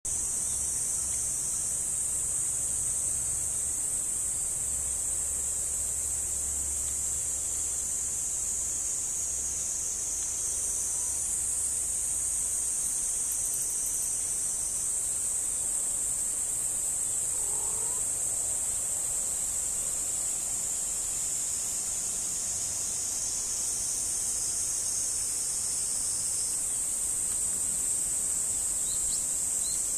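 Steady, high-pitched chorus of insects in the grass. A low rumble sits under it for the first twelve seconds or so.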